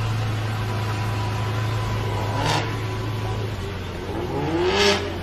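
Lamborghini Veneno's V12 engine running at low revs with a steady deep drone as the car creeps forward, a short burst of noise about halfway, then a brief rev rising in pitch near the end.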